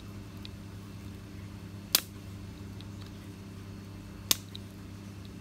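Pliers gripping a stepper pump's metal bushing as it is turned slowly counterclockwise, giving two short, sharp clicks about two seconds apart over a steady low hum.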